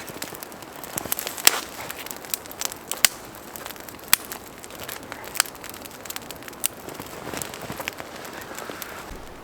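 Wood fire crackling: irregular sharp pops over a steady hiss, a few of them much louder than the rest.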